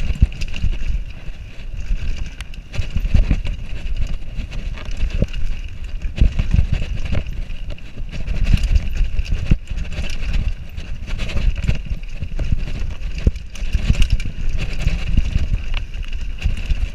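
Downhill mountain bike rolling fast over a rocky dirt trail, heard from a camera mounted on the rider: a constant low rumble of tyres and suspension on the ground, broken by frequent sharp knocks and rattles as the bike hits rocks and roots.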